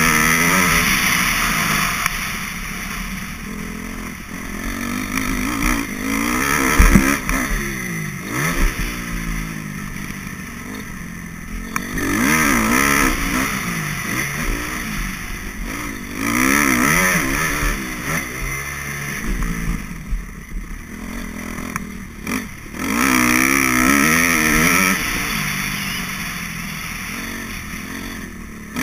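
Motocross bike engine ridden hard around a dirt track, its pitch rising again and again through the gears on the straights and dropping off into the corners. A sharp thump about seven seconds in.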